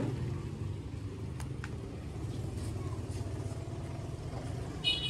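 Steady low hum of an idling motor vehicle engine, with a couple of faint knocks about a second and a half in and a short high squeak near the end.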